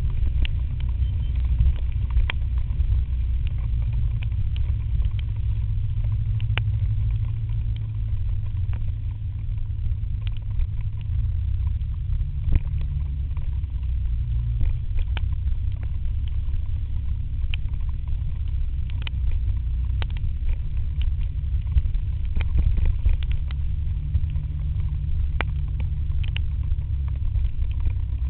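Scooter ride picked up by a scooter-mounted action camera: a steady low wind rumble on the microphone with the faint drone of the scooter's engine underneath, and scattered sharp ticks.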